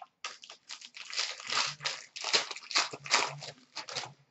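Plastic wrapping of a trading-card pack crinkling and rustling in quick irregular bursts as it is handled and opened by hand.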